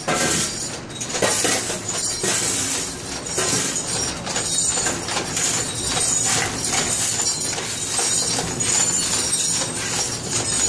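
Dense, continuous metallic clattering and jingling of small pieces of scrap steel in a sheet-metal machine.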